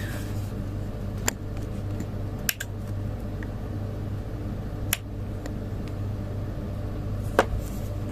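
Steady low electrical hum from the running refrigeration test setup, with four sharp clicks spread through it while the controller is being reset.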